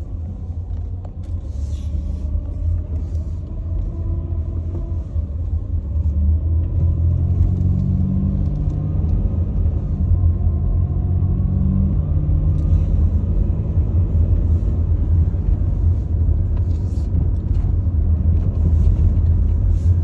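A car driving, heard from inside the cabin: a steady low rumble of engine and road noise that grows a little louder about six seconds in.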